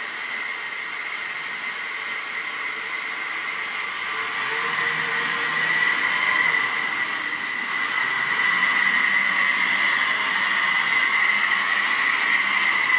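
Model railway trains running round the track, giving a steady high whine from the motors and wheels. It grows louder about five seconds in and stays up.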